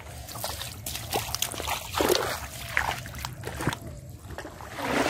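Several separate wet splashes and slaps as catfish are dropped into and shift about in a red plastic bucket with a little muddy water, over a steady low rumble.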